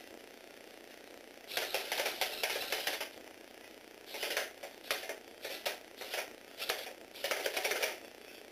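A small Lego Technic robot dog walking on a tabletop, driven by a Tomy Aero Spider toy motor through its plastic gear train: its gears and legs clatter in bursts a second or so long, stopping and starting several times.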